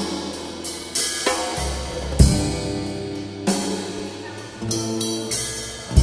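Instrumental accompaniment music for a modern dance class: held pitched chords and a low bass line, punctuated by sharp percussive hits with ringing cymbal-like decays about every one to one and a half seconds.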